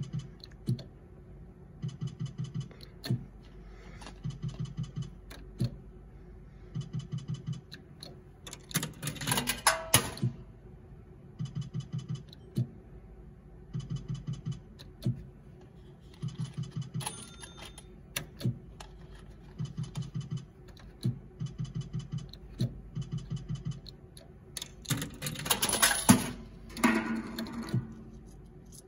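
Video slot machine spinning again and again: each spin ends in a quick run of about five ticks as the reels stop, repeating roughly once a second over a steady low hum. Twice, about a third of the way in and again near the end, a louder noisy burst rises over it.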